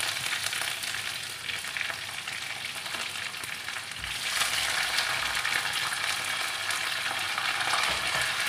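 Curry leaves sizzling in hot oil with tempered mustard seeds in a steel kadai, a steady frying hiss that grows louder about four seconds in.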